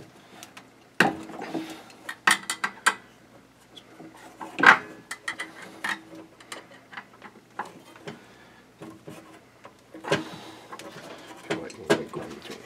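Irregular metallic clicks, clinks and a few sharper knocks from a screwdriver and hands working the Phillips screws out of the flame rod and ignition electrode assembly on a propane boiler's sheet-metal burner housing.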